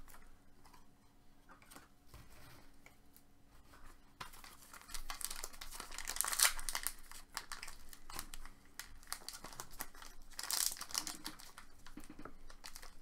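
Trading-card packaging being torn open and crinkled, starting about four seconds in after a quiet stretch, with dense crackling that swells twice.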